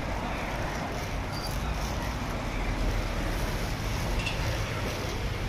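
Steady outdoor background noise: a low rumble with an even hiss over it, with no distinct events.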